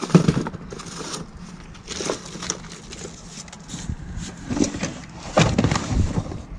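Cardboard boxes and the small loose items in them being rummaged through and shifted by hand: irregular rustling, scraping and knocks, loudest near the end as a box is lifted.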